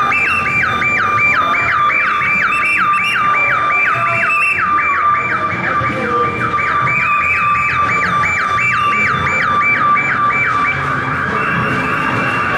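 Small electronic siren on a costumed police bicycle, sounding a fast rising yelp about three times a second, then switching to a quicker warble near the end.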